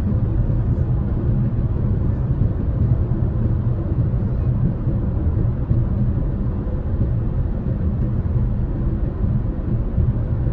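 Steady low rumble of road noise from a car driving on the highway, heard from inside the cabin: tyres on the asphalt and the running engine.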